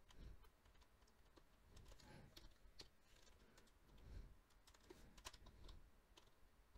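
Faint, irregular keystrokes on a computer keyboard, a few scattered clicks with near silence between them.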